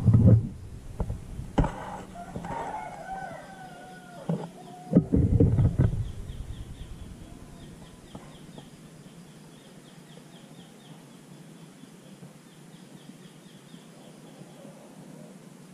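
A junglefowl crows once, a drawn-out call with gliding pitch about two seconds in. Loud low rustling and bumping comes at the start and again around five seconds in, and a fast faint insect-like ticking runs on afterwards.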